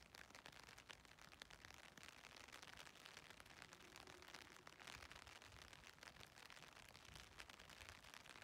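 Faint, near-silent patter of light rain: a dense spread of tiny ticks over a soft steady hiss.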